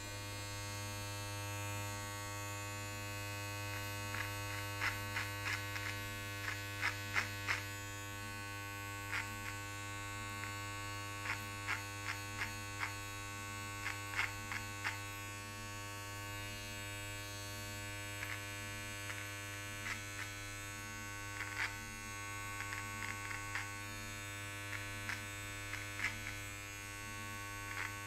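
Manscaped electric body-hair trimmer running with a steady buzz, its blade crackling in short runs as it cuts through beard hair on the moustache and chin.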